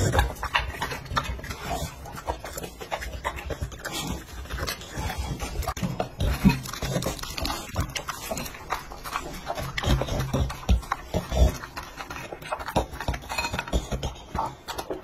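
Bully-breed dog eating soft mashed food from a bowl, close to a microphone: continuous irregular wet chewing and smacking, with a few louder sharp clicks now and then.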